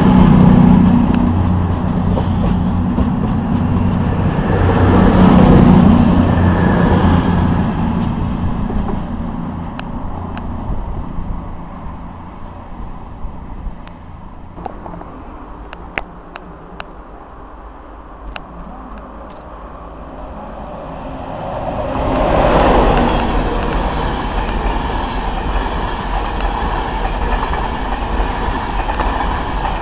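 A CrossCountry Voyager diesel multiple unit runs past close by, its underfloor engines loud for the first several seconds before fading away. About 22 seconds in, a Virgin Trains East Coast express with Mk4 coaches arrives at speed with a loud surge, followed by a steady rush of wheels on rail as the coaches run past.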